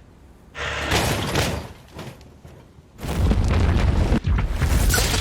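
Cartoon action sound effects of booms and rumbling: a rush of noise about half a second in that fades away, then a heavier, deep rumble from about three seconds in with a sharp crack near four seconds.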